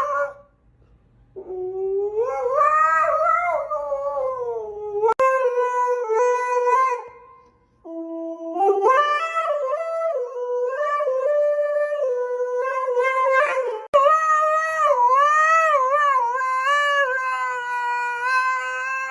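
Dog howling, a run of long, wavering notes with short breaks between them, changing abruptly about five and fourteen seconds in.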